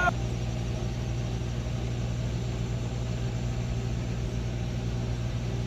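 Truck diesel engine idling steadily, an even low hum.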